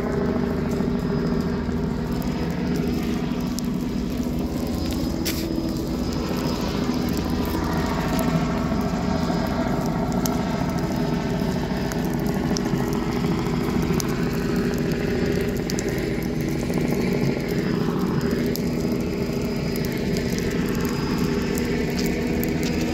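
Helicopter overhead, a steady drone whose tone slowly swirls and sweeps as it circles.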